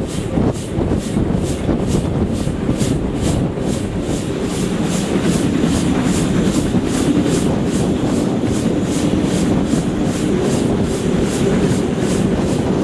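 SBB steam locomotive hauling a train at speed, heard from the carriage right behind it: a rapid, even beat of about four strokes a second over the steady rumble of wheels on the rails.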